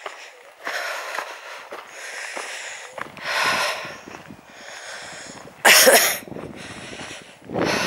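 A hiker breathing hard while walking, the breaths swelling and fading every second or two, with a short loud rush of noise about six seconds in.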